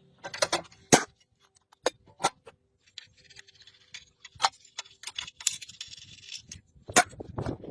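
Irregular sharp clicks and knocks of hard objects, the loudest about a second in, with a stretch of scraping or rustling in the middle.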